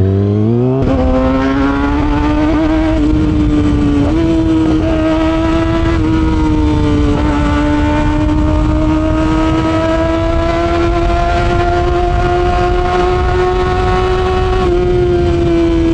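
Kawasaki ZX-6R's inline-four engine through an SC Project exhaust, pulling under way over wind rush. Its pitch climbs sharply in the first second, steps a little a couple of times, then holds a long, slowly rising high note before easing off near the end.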